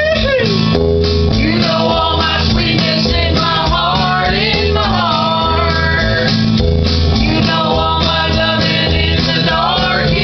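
Voices singing together over a rock-style accompaniment with guitar and a steady beat, the singing sliding up and down in pitch in places.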